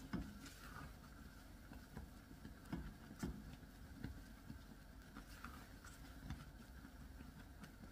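Silicone spatula stirring boiling caramel sauce in a stainless steel saucepan: faint scraping with scattered soft taps and knocks against the pan, a few louder ones near the start and about three seconds in.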